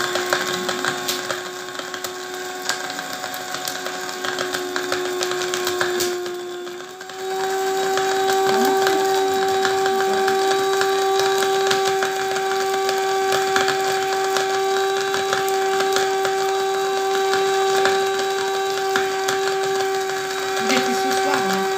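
Small electric blade grinder running steadily, its lid held down, with dried orange peel pieces rattling inside as they are ground into powder. The motor's hum dips briefly about six seconds in, then runs on at a slightly higher pitch.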